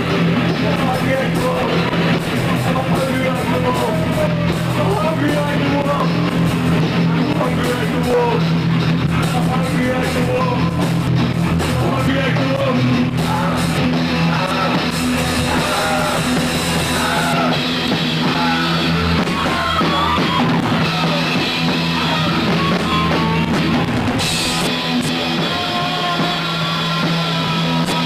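Live rock band playing loud and without a break: drum kit, electric guitars and bass holding a low chord under a wavering melody line.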